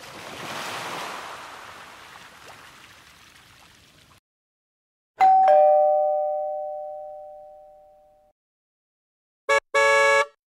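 A bright two-note ding-dong chime, a higher note then a lower one, struck about five seconds in and fading away over about three seconds. Before it come a few seconds of rushing noise, and near the end two short, bright electronic blips.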